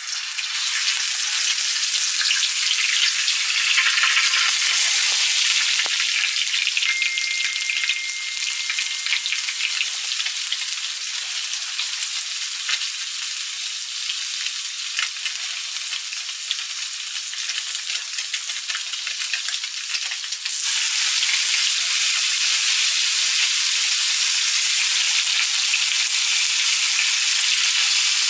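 Fish fillets sizzling in hot oil in a frying pan, a dense steady hiss that starts the moment they go in. It jumps louder about two-thirds of the way through.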